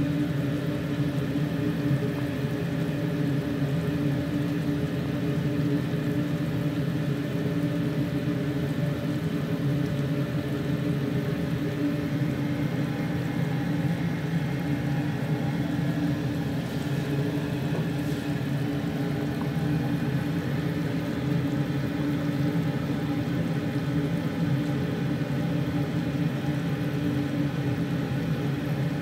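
Steady low rumbling hum from a stovetop pot of chicken and broth at a rolling boil.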